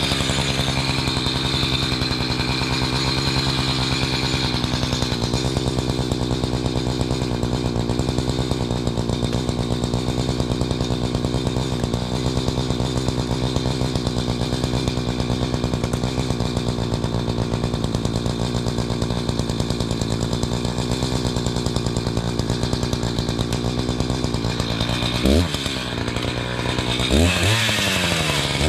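Chainsaw engine running at a steady pitch, then revved up and down a few times near the end.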